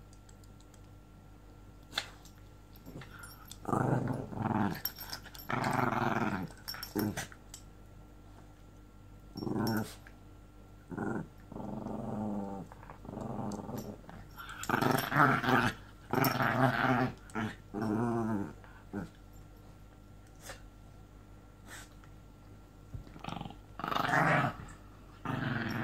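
Dogs play-fighting and growling in repeated bouts a second or two long, with short pauses between.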